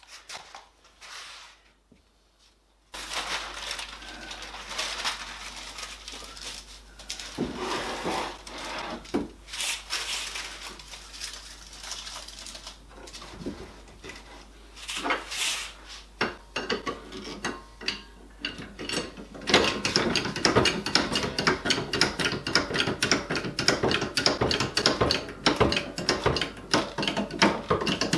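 Workshop handling noise: irregular clattering and knocking of tools and wood, turning into a dense run of rapid clicks about 20 seconds in.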